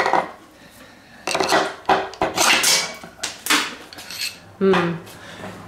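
Small metal parts and hand tools clinking and clattering against each other and the workbench, a series of short, sharp knocks over several seconds.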